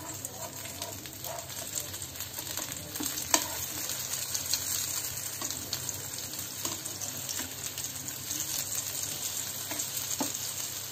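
Besan-coated brinjal slices sizzling in mustard oil on a tawa, with a spatula scraping and clicking against the pan as the slices are turned over. The sharpest click comes a little over three seconds in.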